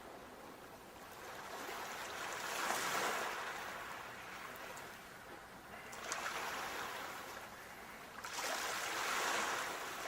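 Sea waves washing on the shore, each surge of surf rising and fading away, three times.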